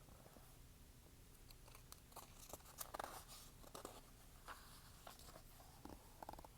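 Faint crinkling and clicking of paper pages being handled and turned, in a cluster of short crackles about halfway through and a few more near the end.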